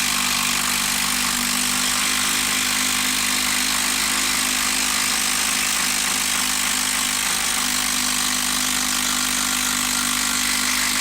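12-volt brushed subcompact impact driver hammering steadily as it drives a long Timberlok structural screw into wood, its rapid impacts running continuously under load.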